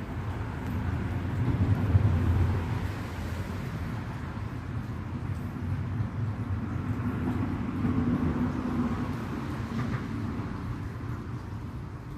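Outdoor road traffic noise: a steady low rumble with vehicles passing, the loudest going by about two seconds in.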